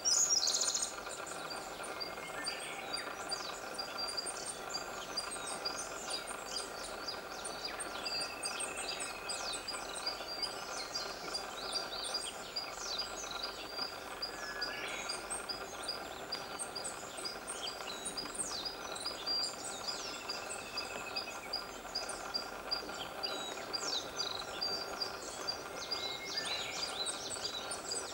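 Woodland bird chorus: several birds chirping and singing throughout, over a high note repeated at an even pace and a steady background hiss, with a short louder burst in the first second.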